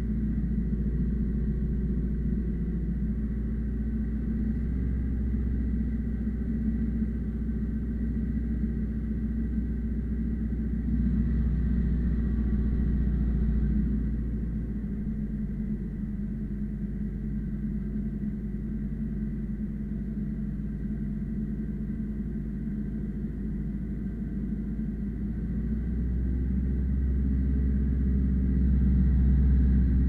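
Ursus C-355 tractor's four-cylinder diesel engine running steadily under heavy load while pulling a two-furrow plough through heavy ground. It swells louder about eleven seconds in, eases for a stretch, then swells again near the end.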